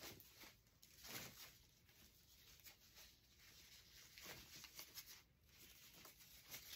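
Faint rustling of ribbon being handled and shaped into a bow: a few soft, scratchy rustles, the clearest about a second in, over near silence.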